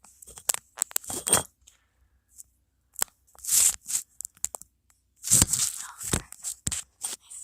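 Crinkling and rustling of packaging material being handled, in irregular bursts with sharp crackles.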